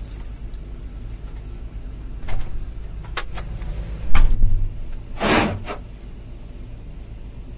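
Heard from inside a Volvo EC350DL excavator's cab while it is washed down with a water hose: a steady low rumble with a few sharp knocks and a short whoosh about five seconds in. The loudest sound is a heavy thump about four seconds in.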